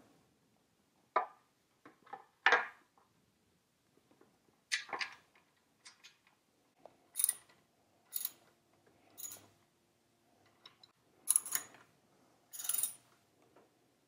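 Handling of a motorcycle front fender and its fixings at the fork: scattered knocks and clicks. From about halfway comes a run of short, rasping clicks about once a second as a fender bolt is turned with a hand driver.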